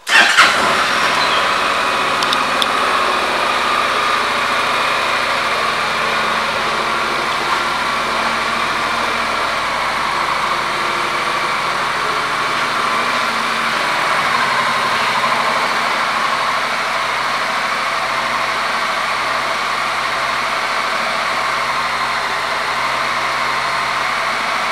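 2014 Honda CTX700's 670 cc parallel-twin engine starting up and catching at once, then idling steadily.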